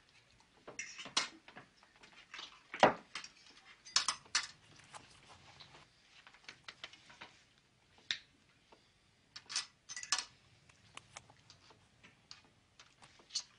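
Irregular clinks and scrapes of a spoon against a ceramic bowl and plate as mashed potatoes are scooped and piled, with a louder knock about three seconds in.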